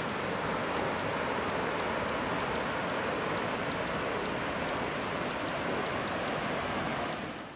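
Steady rushing outdoor noise with faint, sharp high ticks a few times a second; it fades away near the end.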